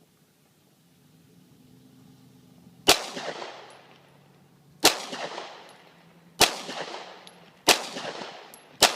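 Glock 19 9mm pistol firing five single shots, the gaps shortening from about two seconds to just over one. Each shot is a sharp crack followed by an echo that trails off.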